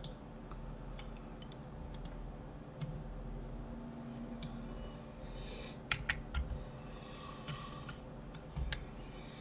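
Scattered clicks of a computer mouse and keyboard, one or two at a time with gaps between them, thickest about six seconds in, over a steady low hum.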